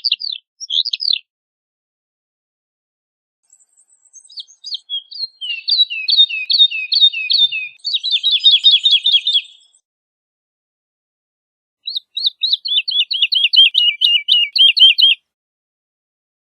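Woodlark (Lullula arborea) singing: a few sweeping notes right at the start, then a long phrase of quickly repeated notes that speeds up into a faster trill, and after a pause of about two seconds a second phrase of repeated downward-sweeping notes.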